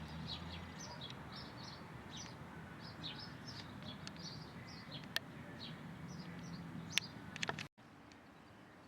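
Small birds chirping: a quick, irregular run of short high chirps over a steady outdoor background, with a few sharp clicks among them. The sound cuts off abruptly near the end, leaving only a quieter background.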